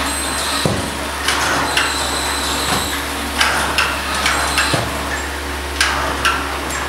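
NASA Valkyrie humanoid robot walking: its electric joint motors give short high whines and sharp clicks. A low knock comes with each footfall on the floor, about every two seconds, over a steady low hum.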